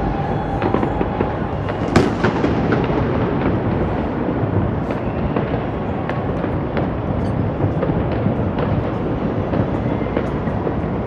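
New Year fireworks: a continuous dense rumble of distant bursts with many sharp cracks and pops, and one louder bang about two seconds in.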